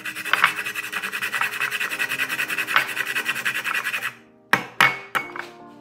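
Nutmeg grated fast on a small fine metal rasp grater: a quick run of scraping strokes, about six a second, that stops about four seconds in. Two sharp taps follow shortly after.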